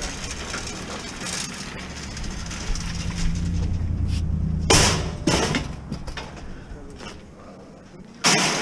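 Metal scrap frame clanking and knocking as it is handled and loaded into a van, with two sharp metallic clanks about five seconds in, over a low steady hum.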